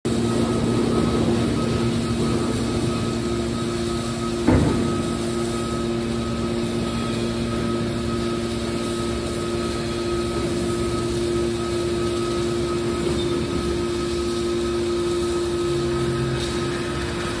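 Scrap metal baler running, a steady mechanical hum with a few constant tones. A single sharp knock comes about four and a half seconds in.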